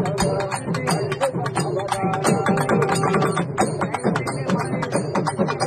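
Urumi melam ensemble drumming at a fast driving pace: urumi drums with repeated sliding, pitch-bending low notes over rapid drum strokes and bright cymbal clashes.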